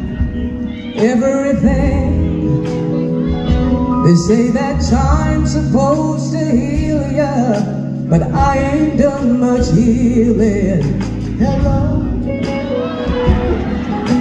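Live soul band playing with singing: a female lead vocalist singing into a microphone over bass, drums and keyboards.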